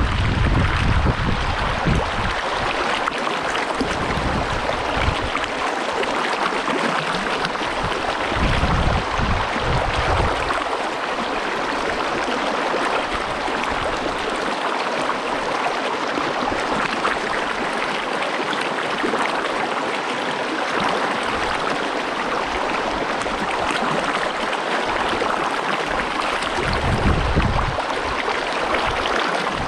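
Big Rock Creek's water rushing steadily, with a few brief low rumbles near the start, about nine seconds in, and near the end.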